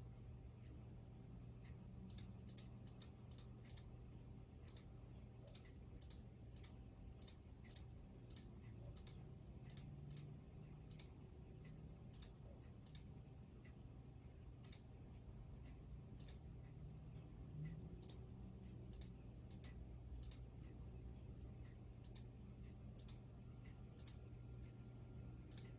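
Faint computer mouse button clicks at irregular intervals, sometimes two or three in quick succession, over a low steady hum.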